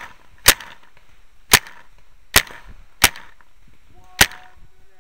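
Paintball marker firing single shots: five sharp pops at uneven gaps over about four seconds.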